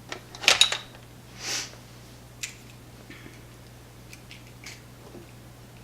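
Metal hand tools clattering in a quick burst of sharp clicks with a brief ringing note, as a tool is picked up from among others on the bench. A short breathy hiss follows, then a few light clicks.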